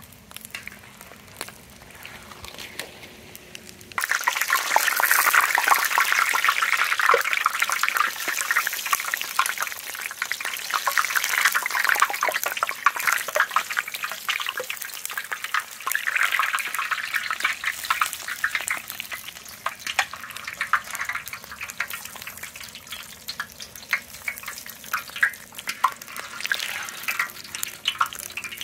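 Eggs deep-frying in a large wok of hot oil: a dense sizzle full of crackling pops. It comes in suddenly about four seconds in, after a quieter start.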